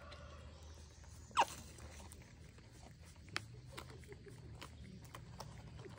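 Prairie dogs eating from a bowl of pellets, small scattered clicks of chewing and rummaging, with one short, loud squeak that drops sharply in pitch about a second and a half in.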